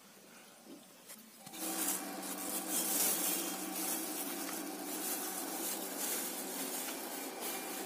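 Black plastic bag crinkling and rustling as it is handled and small fresh fish are tipped out of it, starting about a second and a half in, over a steady low hum.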